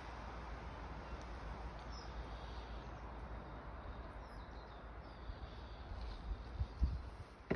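Outdoor ambience: a steady hiss with a low rumble, with faint birds chirping now and then. A few soft low thumps come near the end.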